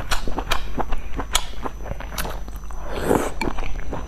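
Close-up eating sounds from a person chewing slices of pork in spicy broth: irregular wet smacking clicks, with a longer breathy slurp about three seconds in.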